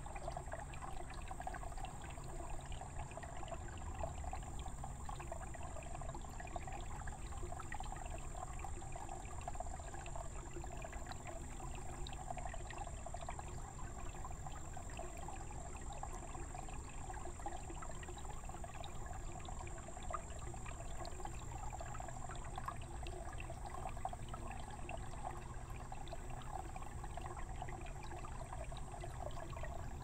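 Water pouring steadily from a bamboo spout and splashing into a shallow, stony pool.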